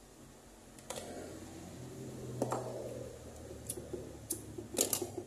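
A few sharp clicks and knocks as the jeweller's torch and metal pick are set down on the workbench, then a disposable lighter flicked several times in quick succession near the end to relight the soldering torch.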